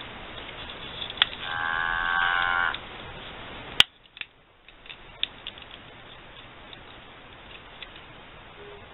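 A click as the barn-and-silo ornament's button is pressed, then its small speaker plays a short, steady electronic moo for about a second. A sharp click follows near four seconds in.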